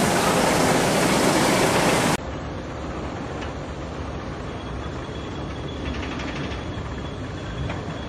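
A loud, even rushing noise cuts off abruptly about two seconds in. It gives way to the quieter, steady rumble of a steel roller coaster train running on its track.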